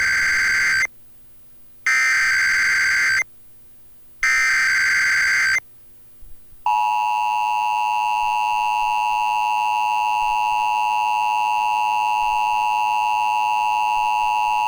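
Emergency Alert System SAME header: three buzzing digital data bursts about a second apart. About seven seconds in, the steady two-tone EAS attention signal (853 and 960 Hz) starts and holds, marking the start of a Required Monthly Test.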